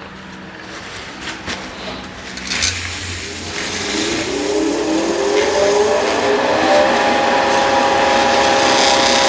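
Vicmarc VL300 wood lathe spinning up, with a few knocks at first, then a motor whine that rises in pitch over about three seconds and settles into steady running at speed.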